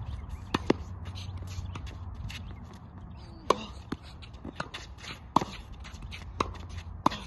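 Tennis ball struck by rackets in a net volley drill: a string of sharp pops at uneven spacing, a few close together near the start and more through the second half, with the loudest about three and a half seconds in. A low steady rumble runs underneath.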